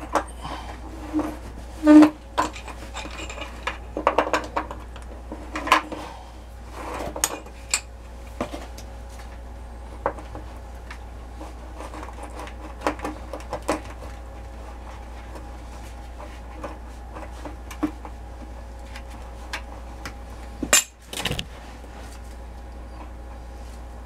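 Screwdriver and metal hand tools clinking, tapping and scraping at the lower heating-element port of an electric water heater's steel tank. The taps come thick in the first several seconds, then sparse, with a louder double clack near the end.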